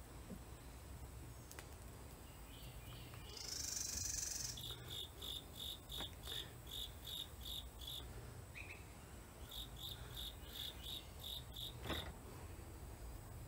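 A series of short, high chirps repeating about three times a second in two runs, over a low steady hum. A brief hiss comes a little before the first run and is the loudest sound.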